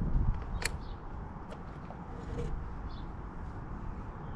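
A single sharp plastic click about half a second in, then a few faint ticks of motorcycle wiring connectors being handled, over a low steady background rumble.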